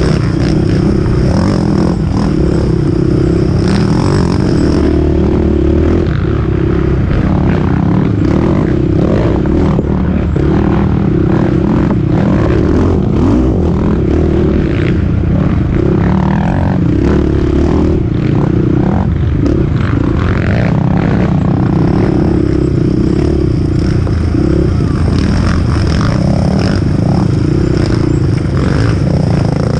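Sport quad's engine running hard under steady throttle, heard from the rider's own machine. Many short clattering knocks come from the chassis and suspension over the rough trail.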